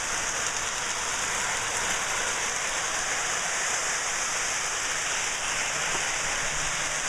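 Lionel O-scale model trains running on the track: a steady, even hiss with no distinct clicks.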